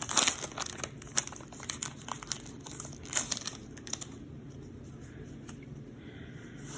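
Pokémon booster pack wrapper crinkling as it is handled and opened, a dense crackle that stops about four seconds in, leaving only faint rustles.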